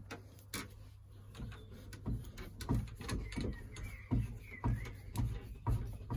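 Rotary pipe cutter being turned around a copper pipe: a regular run of low scraping strokes, about two a second, starting about two seconds in, with short squeaks midway.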